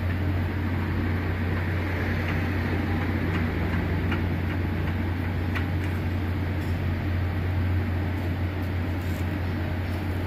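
Steady low hum of running machine-shop machinery, with a few faint clicks from metal parts being handled.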